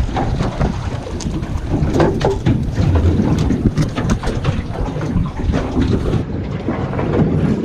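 Wind buffeting the microphone on a small fishing boat, with a run of sharp knocks and clatter in the middle.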